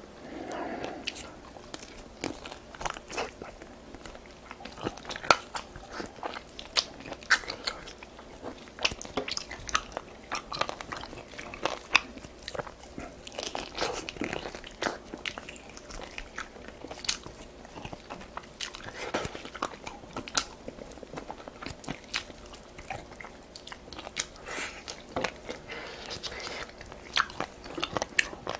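A person chewing and biting food close to the microphone, with many sharp, irregular clicks and crunches.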